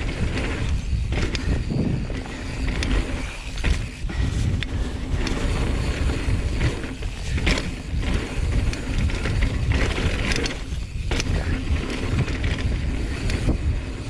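Mountain bike riding fast down a dirt trail: a steady low rush of wind and tyres on the dirt, with frequent sharp clicks and knocks from the bike rattling over bumps.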